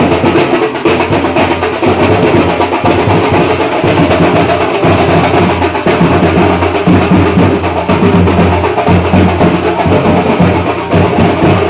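Loud, continuous drumming from a Kerala temple percussion ensemble (chenda melam).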